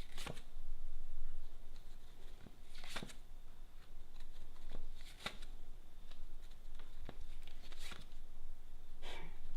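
A deck of tarot cards being shuffled and handled, with about five sharp card snaps a couple of seconds apart over a faint rustle.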